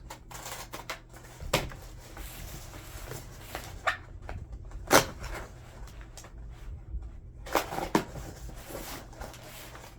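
Cardboard shipping box being handled and opened: scattered knocks, scrapes and rustles, the loudest knock about five seconds in.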